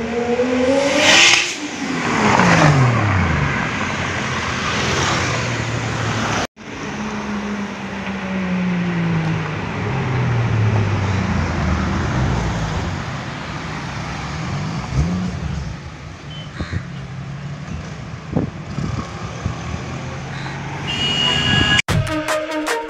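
Loud modified Toyota Supra's exhaust: the engine note climbs as it revs, then drops sharply as the car sweeps past. After a cut, the Supra passes again more slowly, its note sliding down as it drives off, with a short rev about halfway through; electronic music comes in near the end.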